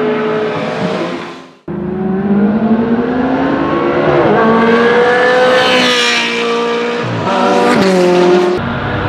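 The Ferrari F355 Challenge's V8 fades away and cuts off. The 2000 Ferrari 360 Challenge's 3.6-litre F131 flat-plane V8 then revs up hard with its pitch climbing, drops back, and revs again through gear changes.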